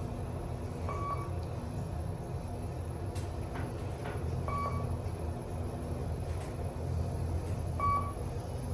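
KONE EcoDisc machine-room-less traction elevator: a steady low hum with three short, high electronic beeps about three and a half seconds apart, and a few faint clicks in between.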